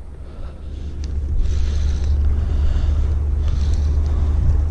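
Wind buffeting the microphone: a heavy low rumble that swells about half a second in and then holds, with one sharp click about a second in.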